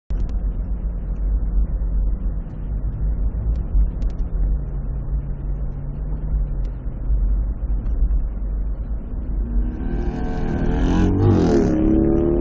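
Steady low road and engine rumble of a car driving, as picked up by a dashcam. About ten seconds in, a louder engine rises and falls in pitch as a vehicle revs and passes close by.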